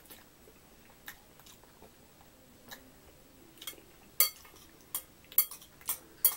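Metal chopsticks clinking against a glass bowl while stirring and picking up noodles. The first few seconds are quiet apart from a few faint clicks; from about four seconds in comes a quick run of sharp clinks, several a second.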